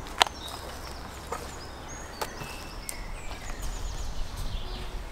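Knife cutting raw meat on a wooden cutting board: a few sharp knocks of the blade on the board, the first the loudest. Small birds chirp in short high notes over a steady low rumble.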